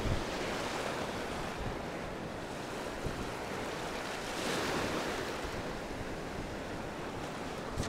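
Ocean surf breaking and washing up the shallows around the feet, a steady rushing that swells twice as waves come in.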